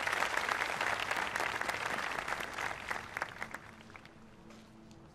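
Crowd applause, many scattered claps that thin out and die away over the first three to four seconds, with a faint low musical tone coming in near the end.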